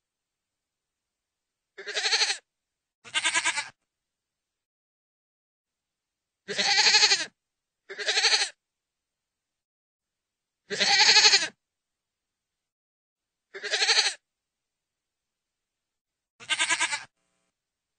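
Goat bleating: seven short bleats of about half a second each, spaced a second or more apart with silence between them.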